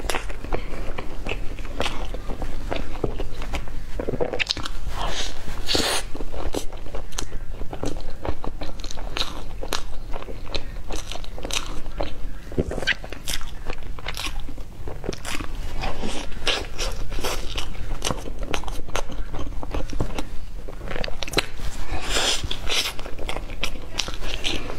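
Close-miked biting and chewing of a chocolate-coated cake roll: the chocolate coating cracks and crunches in many crisp little snaps between softer chewing. There are louder clusters of crunching about five seconds in and again near the end.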